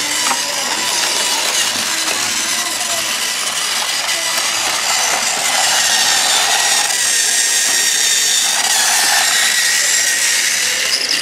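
Battery-powered TrackMaster Thomas toy engine running, its small electric motor and gears whirring steadily, a little louder in the second half.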